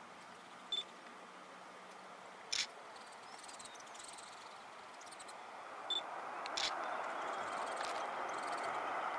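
Distant jet noise of a Boeing 737-700's CFM56 turbofans, growing steadily louder from about halfway through as the aircraft approaches. Four sharp clicks are heard over it, the first two alone and the last two close together.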